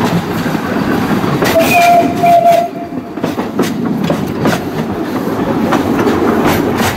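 Narrow-gauge steam locomotive running along the track with a rhythmic clatter and hissing steam. It gives a short whistle about a second and a half in.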